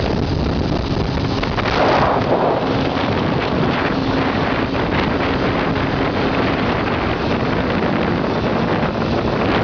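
Wind rushing over the microphone of a moving Honda CBR600F4i motorcycle, its inline-four engine running at a steady pitch underneath at a constant cruising speed, with a brief swell of noise about two seconds in.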